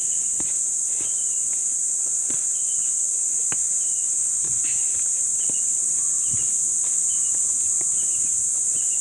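A steady, high-pitched drone of insects, with a short chirp repeating every half second or so above it. Footsteps on a dirt trail scuff here and there.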